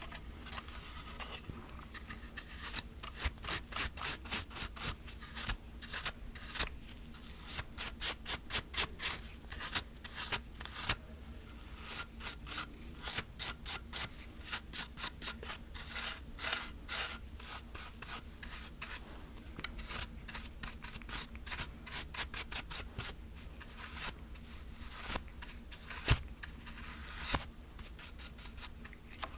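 A dry brush sweeping the inside of a plastic film camera: many short, quick strokes in runs, with brief pauses between them.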